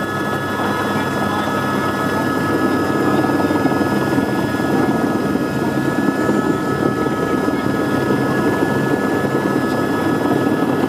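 Helicopter in flight, heard from inside the cabin: a steady drone of rotor and engine with a few steady high tones running through it.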